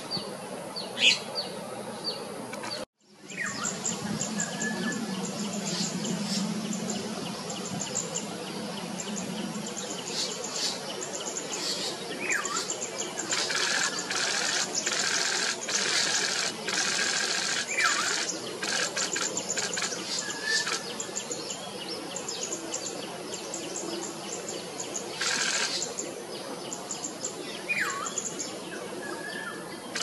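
Small birds chirping and calling: many short, high-pitched chirps, with dense buzzy, rattling bursts partway through and again near the end. The sound drops out for a moment about three seconds in.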